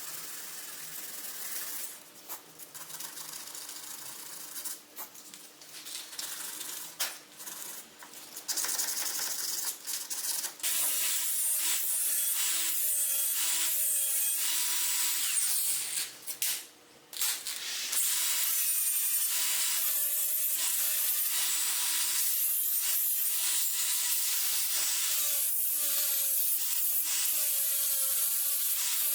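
A small electric power tool running, its whine dipping and recovering in pitch as it is pressed into the work. It starts in earnest about a third of the way in, after a quieter stretch of intermittent working noise.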